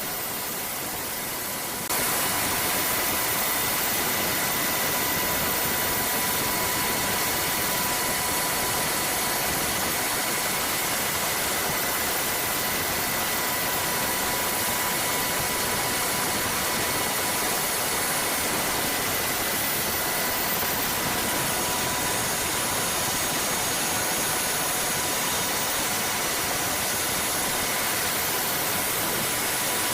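HH-60 Pave Hawk helicopter heard from its cabin during a hoist rescue: steady turbine and rotor noise with a thin, steady whine on top. It gets louder about two seconds in and then holds even.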